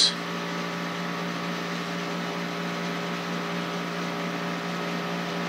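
Steady machine hum: a low drone with several steady tones above it, unchanging throughout.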